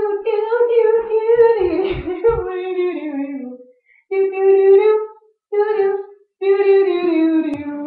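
A girl singing long held notes without clear words, in four phrases, the pitch sliding downward at the end of the first, in a small tiled bathroom. Faint low thumps sound under the first couple of seconds.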